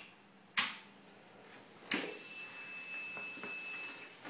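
Two sharp clicks at a motorcycle's handlebar controls, then a steady, high, pure electronic tone that holds for about two seconds and stops shortly before the end. The engine is not running.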